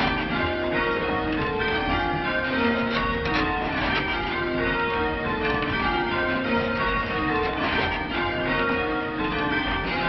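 A ring of church bells rung in changes, heard from the ringing chamber: an unbroken, even stream of bell strikes, each note ringing on under the next.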